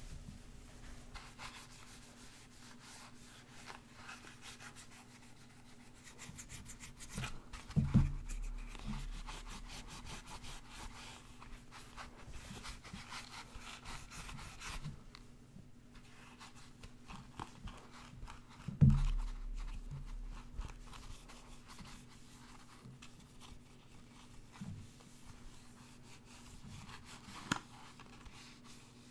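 A cloth rubbing and wiping over a plastic face mask close to the microphone: soft, continuous scrubbing, broken twice by a low thump, with a short click near the end.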